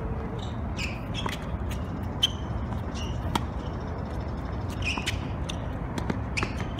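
Tennis rally on a hard court: a ball struck back and forth with rackets, heard as several sharp pops, mixed with short high squeaks from the players' shoes.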